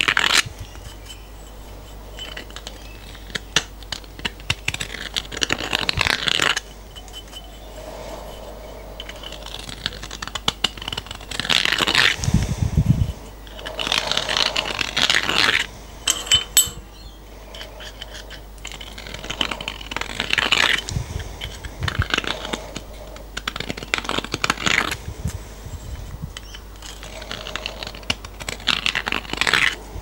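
Hand deburring tool scraping the edges of freshly drilled holes in a metal plate, in short scraping strokes of a second or two every few seconds, with small metal clinks as the plate is handled on the vise and a dull knock near the middle.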